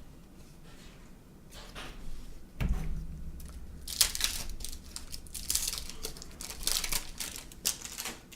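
Paper and plastic rustling and crinkling, with a low thump about two and a half seconds in, then a run of crinkling and tearing from about four seconds on: a baseball card pack wrapper being handled and torn open.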